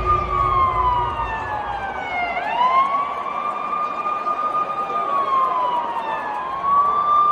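Siren wailing in a slow cycle, falling in pitch over about two seconds and then sweeping back up, twice.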